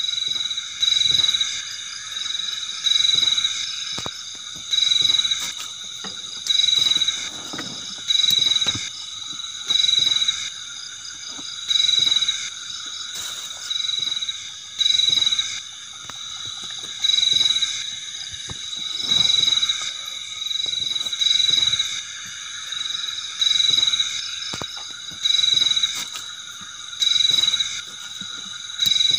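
Crickets chirping: a steady high trill, with louder bursts of chirping recurring about every two seconds.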